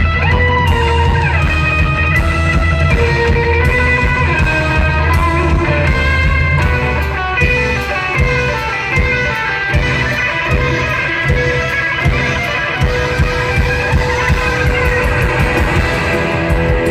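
Live rockabilly band playing an instrumental passage: a lead electric guitar playing sliding, bending lines over bass and drums.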